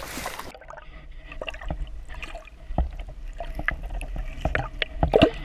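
A hooked brook trout splashing at the surface, then heard from underwater as it fights the line: muffled gurgling and bubbling with a low rumble and scattered sharp knocks, the knocks loudest near the end.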